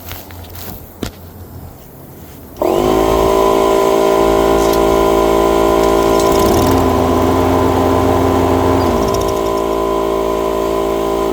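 Lawn mower engine starting up about two and a half seconds in and then running steadily. The mower fires right up after sitting unused for years, once its blocked fuel line has been blown clear with compressed air.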